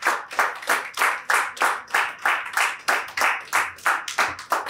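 Audience clapping together in a steady rhythm, about three claps a second.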